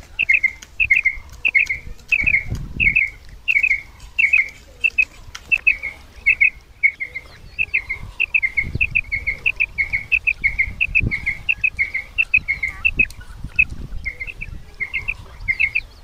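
Female quail calls used as a hunting lure: short doubled high chirps repeated about three times a second, in runs with brief pauses.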